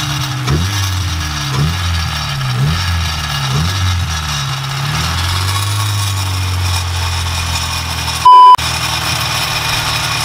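Honda S2000's four-cylinder DOHC VTEC engine running, its pitch dipping and recovering about once a second for the first few seconds and then holding steady. About eight seconds in, a loud, short one-tone bleep cuts over it.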